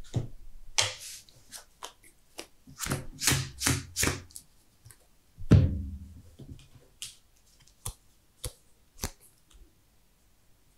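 Trading cards being handled on a playmat: a run of quick slides and flicks, a louder thump about halfway through, then a few single sharp taps.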